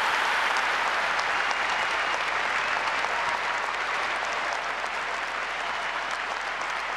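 Large audience applauding, an even wash of many hands clapping that slowly dies down.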